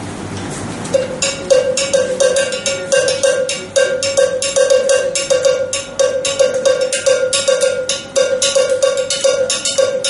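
Bongo bell, a hand-held cowbell, struck with a stick in a steady repeating rhythm of about two to three strokes a second, starting about a second in.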